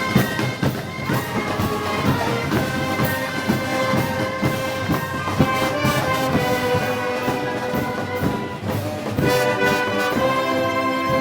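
Brass band playing Moros y Cristianos festival music: trumpets and trombones hold chords over percussion, the chords growing fuller near the end.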